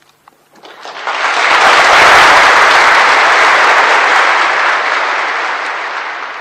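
Audience applause at the end of a speech: a few scattered claps, then a full round of clapping that swells about a second in, holds, and slowly dies away near the end.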